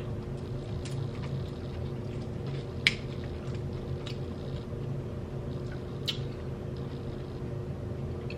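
Close-up eating sounds: wet, squishy chewing and mouth smacks, with scattered sharp clicks, the loudest about three and six seconds in, over a steady low hum.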